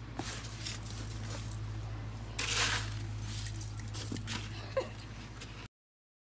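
Plastic snow shovel scraping and pushing snow across pavement, loudest about two and a half seconds in, while a German shepherd gives a few short whines near the end. The sound cuts out suddenly just before the end.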